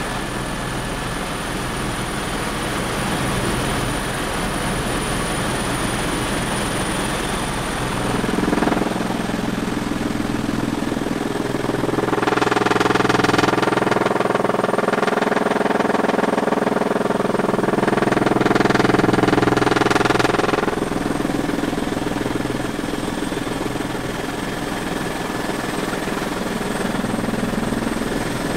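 Helicopter engine and rotor noise heard from inside the cockpit, running steadily. For about twelve seconds in the middle it grows louder, with a stronger pitched rotor note, while the helicopter banks steeply.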